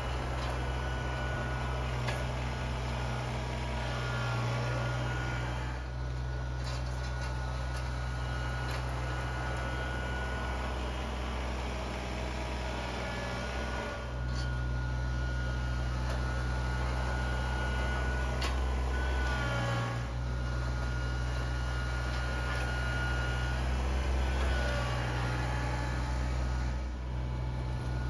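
Kubota BX compact tractor's diesel engine running steadily under load while working a rear snow blade. A high whine rides over the engine and bends in pitch a few times, and the sound dips briefly now and then.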